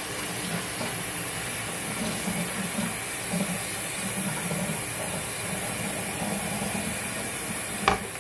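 Steady background hiss, with a sharp knock near the end as a plastic cutting board is set down on the table.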